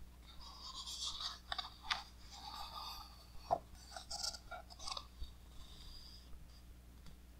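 Large glossy pages of a heavy coffee-table art book being turned by hand: paper rustling and sliding in patches, with one sharp crack about three and a half seconds in.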